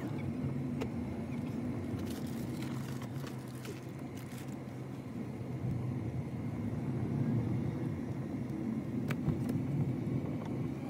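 Car engine and road noise heard from inside the cabin while driving slowly: a steady low hum that grows a little louder in the second half, with a couple of faint clicks.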